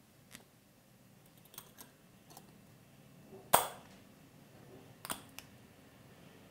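Small glass clip-top jars being handled: light clicks and taps of glass lids and wire clasps, with one sharp, ringing glass clink a little past halfway and a quick double click near the end.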